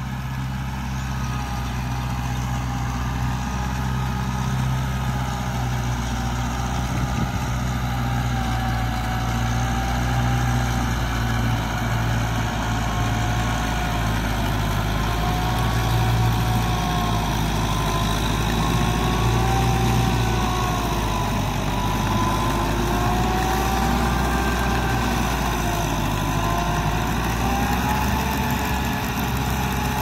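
Kubota M6040SU tractor's diesel engine running steadily under load while driving a rear rotary tiller through wet soil, with a whine that wavers slowly up and down in pitch.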